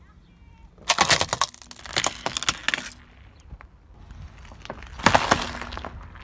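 Car tyre rolling over a plastic toy car, which snaps and cracks in a rapid run of breaks for about two seconds. About five seconds in comes a second, shorter burst of cracking as the tyre crushes a tray of raw eggs in their cardboard carton.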